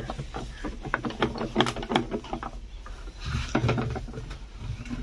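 Soaked gram and millet feed dropping in clumps out of a plastic can into a metal tub of damp fodder mash, with irregular knocks and thuds as the can is shaken over the tub.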